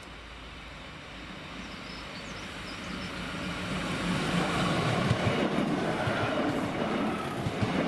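A diesel train approaching along the line, its rumble growing steadily louder over the first four seconds or so and then holding as it draws near.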